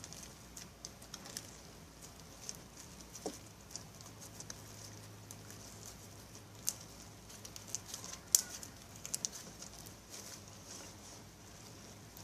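Clear glue slime being squished and kneaded by hand: an irregular run of small sticky clicks and pops, with a sharper click about eight seconds in.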